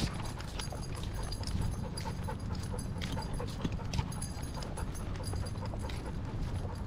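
Cane Corso panting, with scattered short clicks throughout.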